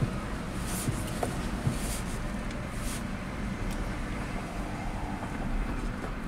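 Steady low rumble inside a 2006 Toyota Camry's cabin as the car creeps along at a few miles an hour: engine and road noise, with a few brief hisses in the first three seconds.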